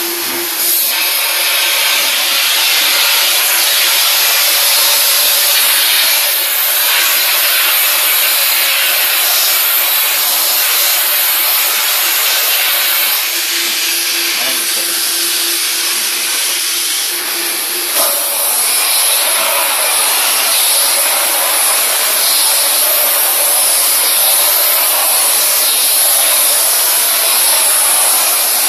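Steam cleaner running and jetting steam from its wand nozzle: a steady, loud hiss over the machine's steady hum, which shifts to a higher note about two-thirds of the way through.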